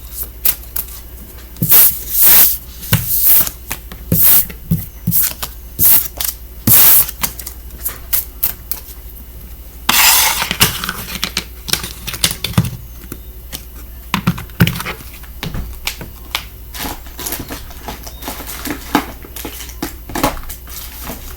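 A deck of cards being shuffled and handled: a run of short snaps and slaps, with a longer riffling burst about ten seconds in.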